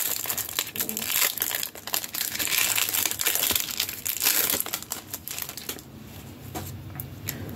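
Crinkling of thin plastic packaging being torn open and pulled off trading cards, a dense run of crackles that thins out and quiets about six seconds in.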